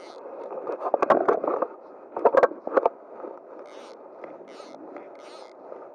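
Sharp scraping and rustling handling noises close to the microphone, in two clusters about a second and about two seconds in, over a steady rush of flowing river water. A faint high chirp repeats about twice a second.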